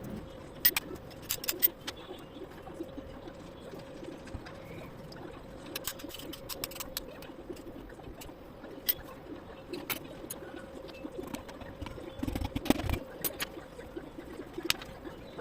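Pigeons cooing in the background, with scattered light clicks and taps from parts being handled and a brief low rumble about twelve and a half seconds in. A faint steady hum runs underneath.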